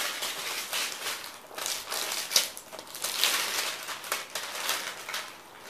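Clear plastic packaging crinkling and rustling as a boxed product is handled and pulled out of it, in uneven rustles with the sharpest crackle about two and a half seconds in.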